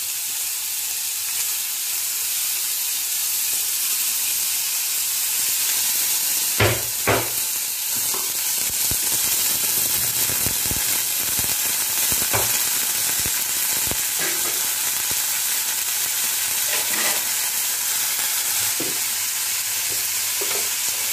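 Shredded carrots frying and sizzling in a steel kadhai with panch phoron and ginger, stirred in the pan. Two loud knocks against the pan come about six and a half seconds in, followed by a run of lighter clicks and knocks.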